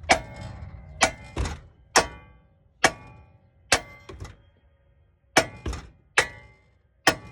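Sledgehammer blows on the front steering knuckle of a Honda Civic, about a dozen sharp metal strikes at an uneven pace, each ringing briefly, struck to knock a seized lower ball joint stud loose.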